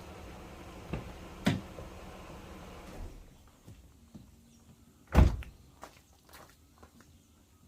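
A door being opened and shut: a couple of lighter knocks, then a loud thud about five seconds in. The steady background noise falls away about three seconds in.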